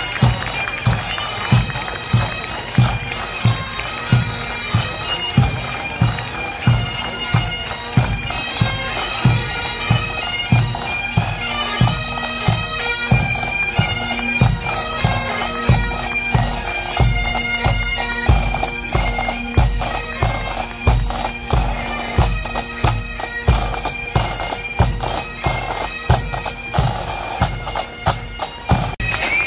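Marching pipe band: Great Highland bagpipes playing a tune over their steady drone, with drums keeping a regular beat.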